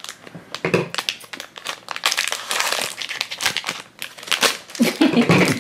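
Clear plastic blind-bag wrapper crinkling in rapid, irregular crackles as hands grip and squeeze it around the plastic cheese-wheel toy container inside.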